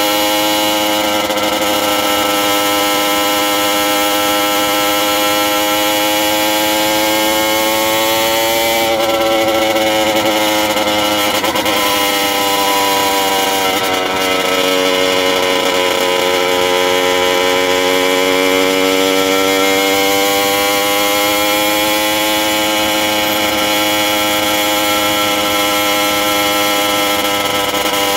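Small engine of a motorized bicycle running under way at speed. The engine note sags twice with the throttle and climbs back each time.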